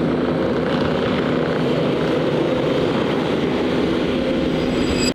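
A motor running steadily: a constant hum over a continuous rushing noise, unchanging throughout.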